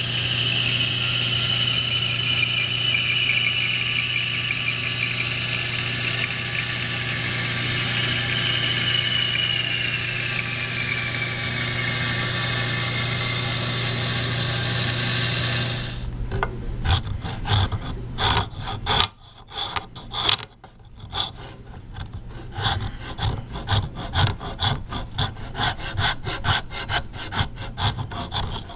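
Bandsaw running and cutting through a walnut rifle stock to separate the cheekpiece: a steady hum with a high whine that sinks slightly in pitch around ten seconds in. About sixteen seconds in it gives way to a hand file scraping back and forth across the walnut in quick, even strokes.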